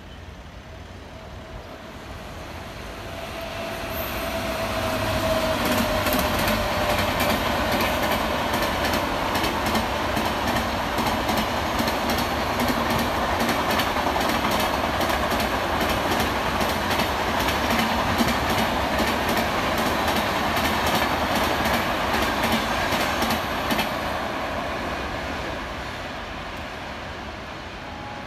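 Indian Railways express train, an electric locomotive hauling a long rake of red LHB coaches, passing at high speed. It grows louder as it approaches, then gives a long steady run of rapid wheel clatter over the rail joints as the coaches rush by, and fades as it draws away near the end.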